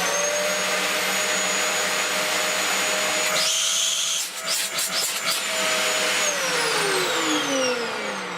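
Dyson DC04 upright vacuum cleaner's motor running at full speed, a steady whine over the rush of air, with a brief uneven patch of air noise and knocks midway. About six seconds in it is switched off and the whine falls away as the motor spins down. Running at all shows that the repaired mains cable and switch wiring work.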